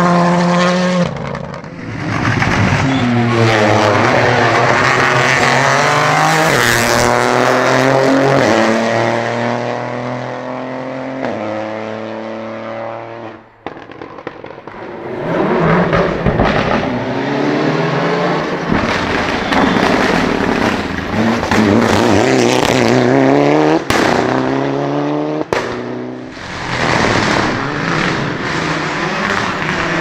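Rally car engines at full throttle, revving up through the gears with quick upshifts, pitch climbing and falling back again and again, over two passes with a break between them about halfway through. A couple of sharp pops come between shifts near the end.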